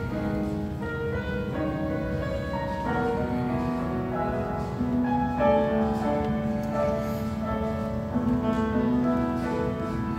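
Women's choir singing held chords to grand piano accompaniment.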